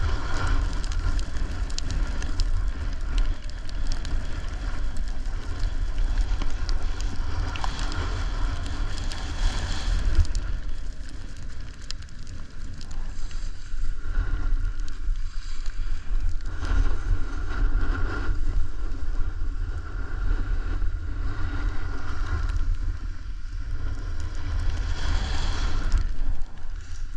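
Wind buffeting the microphone with a steady low rumble, over the hiss and scrape of a snowboard sliding on snow, swelling and easing through the turns.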